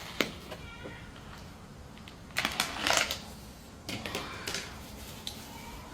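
Clicks and crinkly rustling of plastic as a takeout meal box and its bag are handled and opened: a sharp click at the start, then two short bursts of crackling plastic.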